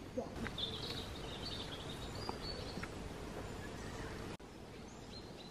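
Woodland birdsong: a small bird's high, short chirps and trills over the first few seconds, above a faint outdoor background that drops suddenly about four seconds in.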